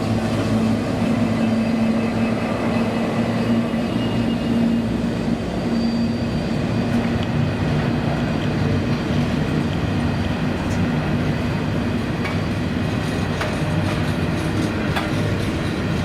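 Diesel-hauled freight train passing: a steady locomotive engine drone, with wheels clicking over the rail joints in the second half.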